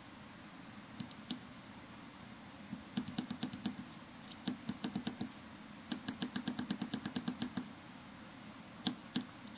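Small tactile pushbuttons on a breadboard clicking as they are pressed, in quick runs of several clicks, up to about eight a second, with single clicks near the start and end.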